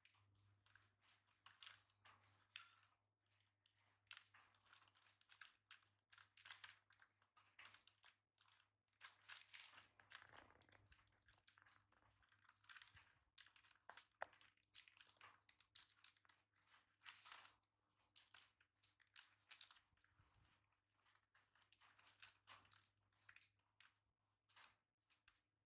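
Faint, irregular crinkling and clicking of a plastic snack packet as a baby monkey rummages in it and pulls out snacks.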